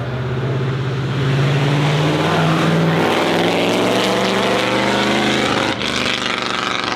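Mercedes-Benz W125's 5.7-litre supercharged straight-eight engine running loudly. Its note climbs over the first three seconds, then falls away and eases off about six seconds in.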